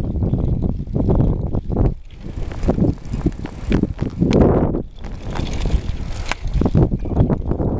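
Wind buffeting the microphone of a camera carried on a moving bicycle, a rough gusting rumble, with irregular rattles and knocks from the bike riding over the street.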